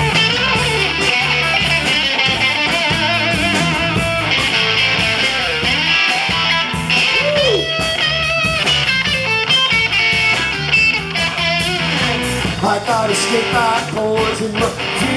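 Live rock band playing: electric guitars with bending lead notes over drums, with no vocals yet.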